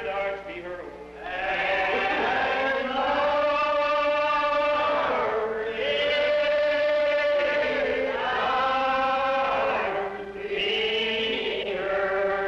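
Slow unaccompanied congregational hymn singing by many voices, each note drawn out and sliding into the next, in three long phrases with brief pauses between them.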